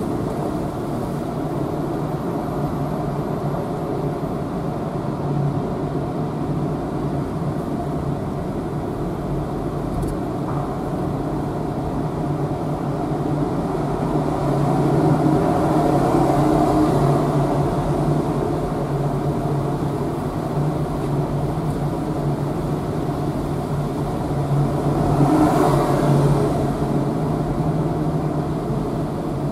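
A car driving slowly through a ferry's enclosed vehicle deck, heard from inside the car: a steady low drone of engine, tyres and the hold's hum, which grows louder for a few seconds about halfway through and again near the end.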